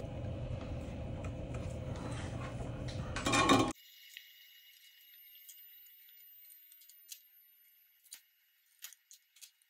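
Light clinks and clicks of small metal parts being handled while wiring a relay board with a soldering iron, over a steady background hiss, with a brief clatter a little over three seconds in. The hiss stops abruptly just before four seconds in, leaving a few faint, scattered ticks.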